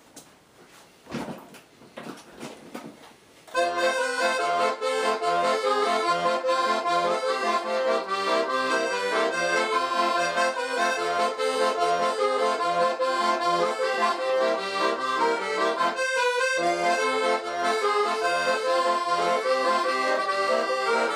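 Piano accordion playing a tune over a steady, evenly repeating bass. It comes in about three and a half seconds in, after a few faint knocks, and breaks off briefly about three-quarters of the way through before carrying on.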